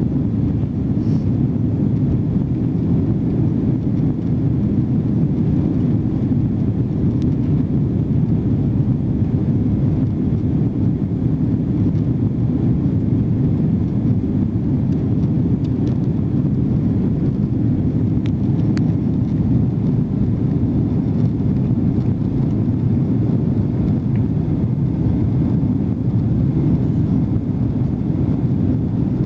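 Steady low rumble of a passenger airplane heard from inside the cabin, engine and air noise holding even throughout.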